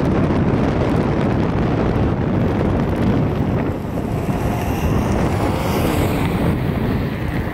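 Steady rumbling roar of wind buffeting the microphone, mixed with the jet noise of a taxiing Boeing 777-300ER's GE90 engines.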